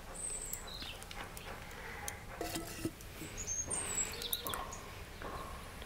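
Small birds chirping a few times, over scattered light clinks and knocks as an enamel pot is set on a stove's metal grate and handled.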